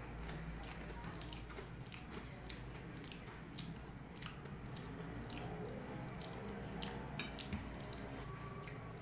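Close-up eating sounds: wet smacks, squelches and little clicks of a person chewing a soft meal of rice and dal, over a steady low hum.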